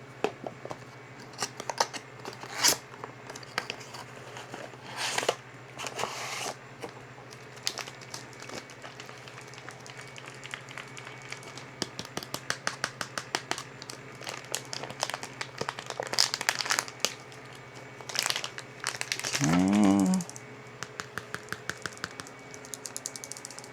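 Plastic packaging of a UV ink cartridge being handled and opened: crinkling and tearing with many scattered clicks and quick runs of ticks. A short rising tone sounds briefly near the end.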